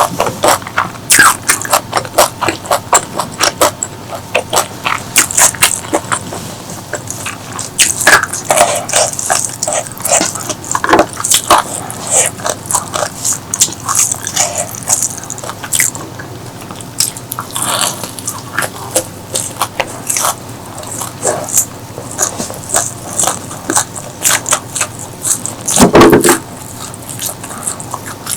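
Close-miked eating: a rapid run of crisp crunches and chewing, with one louder, deeper thump near the end.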